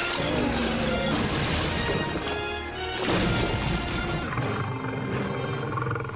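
Dramatic soundtrack music with crashing impacts and booms under it.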